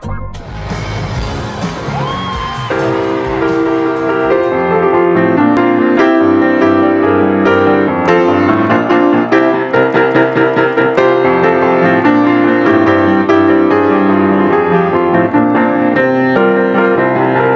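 Background music: keyboard chords over a steady beat, with a short rising glide about two seconds in.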